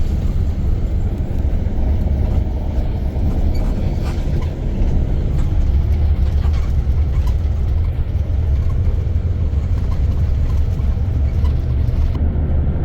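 Bus on the move: a steady, loud, low rumble of engine and road noise.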